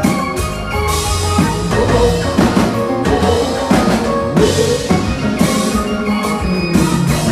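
Haitian konpa band playing live and amplified: drum kit keeping a steady beat under bass and keyboard.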